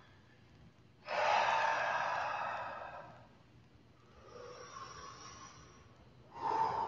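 Heavy breathing from people working hard: a loud breath out starts suddenly about a second in and fades over about two seconds, a fainter breath follows, and another loud one comes near the end.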